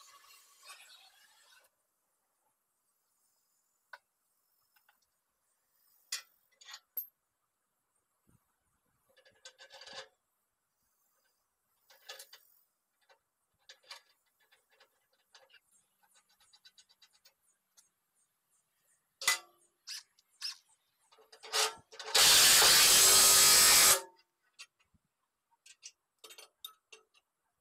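Scattered clicks and clinks of hand metalwork on a steel tractor bucket, broken about 22 seconds in by a loud two-second burst of rushing noise.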